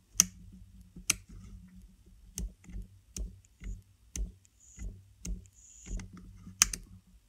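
Sharp clicks and taps, about one a second, from small metal vaping hardware (a rebuildable tank and its mod) being handled while the coil's resistance is checked, with a couple of short soft scraping hisses in between and a faint low hum underneath.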